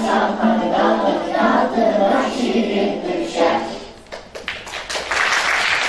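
Children's choir singing together, the song ending about three and a half seconds in; the audience then starts clapping, building into steady applause.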